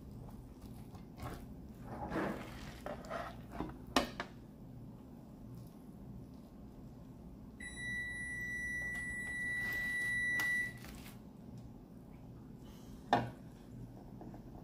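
An electronic appliance beeper gives one steady high beep, held for about three seconds, starting about halfway through. Around it a spatula scrapes and knocks on a metal baking sheet, with a sharp knock near the end.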